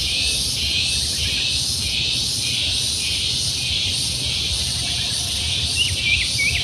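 Insect chorus: a high, dense buzzing that swells and fades in a regular pulse, a little under twice a second, with a few short bird chirps near the end and a low rumble underneath.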